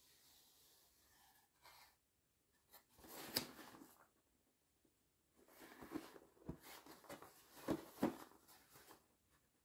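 Cardboard packaging handled by gloved hands: the box lid is opened and an inner cardboard box is lifted out. Two stretches of faint rustling and scraping, with a few sharp taps.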